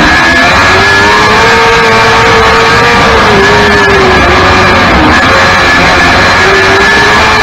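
Loud onboard sound of a restrictor micro sprint car's 600cc motorcycle engine at racing speed, its pitch rising and falling as the throttle comes on and off through the turns of a dirt oval.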